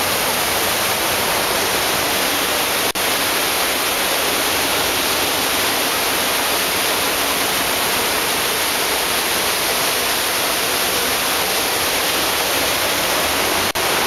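Loud, steady rush of whitewater pouring over rocks below a small hydroelectric dam, dropping out for an instant about three seconds in and again near the end.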